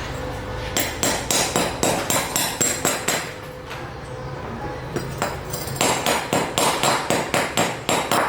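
Rapid metallic knocks, about three to four a second, in two runs separated by a pause of about two seconds.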